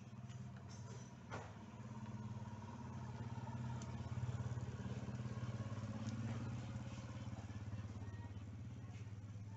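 Small motorcycle passing along the road, its engine hum growing louder to a peak about four seconds in, then slowly fading.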